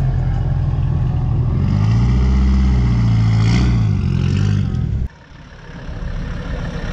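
Exhaust of a widebody Honda S2000 running, its engine note climbing about a second and a half in, held higher for about three seconds, then easing back. About five seconds in it breaks off suddenly and a quieter car engine is heard, growing louder as an older Mercedes station wagon rolls past.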